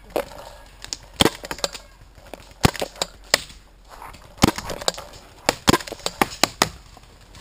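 Paintball gunfire: an irregular string of sharp pops and cracks, some single and some in quick clusters, with paintballs fired and striking around the player's wooden barricade.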